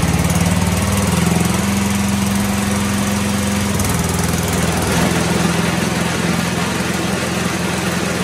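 John Deere 111 lawn tractor's 11 hp single-cylinder Briggs & Stratton engine running steadily. About four seconds in, the mower blades are engaged and the engine note shifts slightly lower as it takes up the spinning deck.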